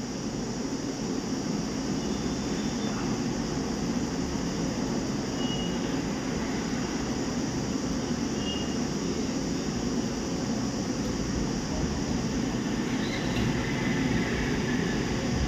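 Steady low rumbling background noise, with two faint short high beeps a few seconds apart.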